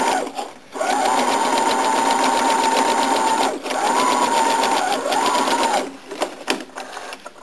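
Electric domestic sewing machine stitching a patchwork seam at slow speed: the motor hum with its rapid, even needle strokes runs for about two and a half seconds, stops briefly, then runs twice more in shorter bursts, each start rising slightly in pitch. A few light clicks follow near the end.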